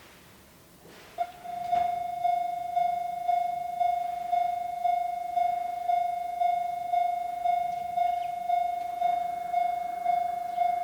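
Japanese railway level crossing warning alarm starting abruptly about a second in and ringing in even strokes about twice a second, a train approaching the crossing.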